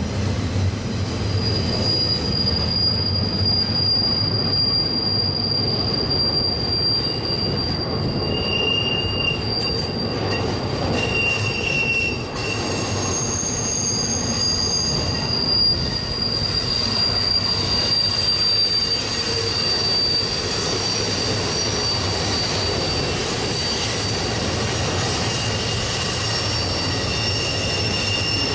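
BNSF intermodal train's cars rolling through a curve: a steady rumble under high, long-held wheel squeals that fade in and out, the wheel flanges grinding against the rail on the curve.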